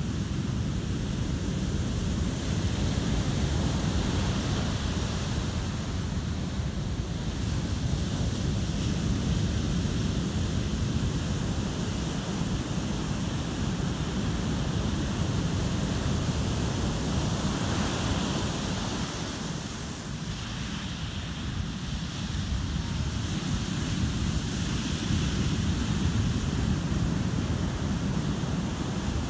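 Surf breaking and washing up a sandy beach, the hiss swelling and falling back every several seconds, with wind rumbling on the microphone.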